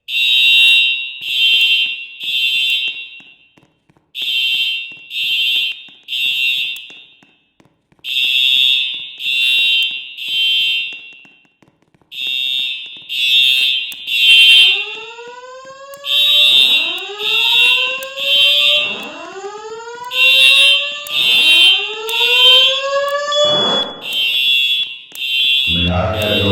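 Building fire alarm sounding the temporal-three evacuation pattern: three loud, high beeps, then a pause, repeating. About halfway through, a series of rising whoop tones from the voice evacuation speakers joins in over the beeps. This whoop is the lead-in to the recorded evacuation announcement.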